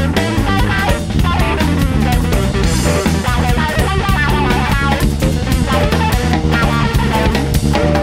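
Rock music with guitar, bass guitar and drums, playing at a steady level with a regular beat.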